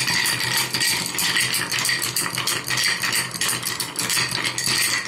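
Ice cubes clinking against a tall glass as a cocktail is stirred with a long iced-tea spoon: rapid, continuous clinking as the drink is chilled.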